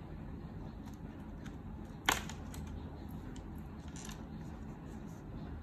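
Coloured pencil on a paper worksheet: one sharp tap about two seconds in, then faint ticks and scratching as it starts colouring.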